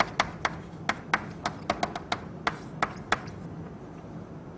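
Chalk tapping and clicking against a blackboard as symbols are written: about a dozen sharp, irregular taps that stop a little after three seconds in.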